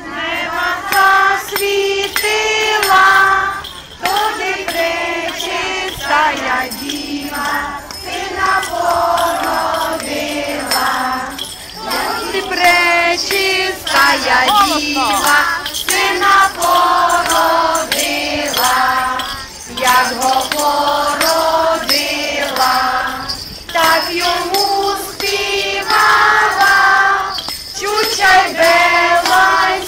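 A group of children singing a koliadka, a Ukrainian Christmas carol, together in phrases, with bells jingling along.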